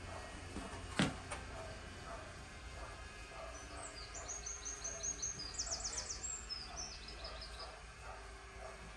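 A single sharp knock about a second in, then a small songbird singing a run of quick, repeated high notes and trills, over a low steady background rumble.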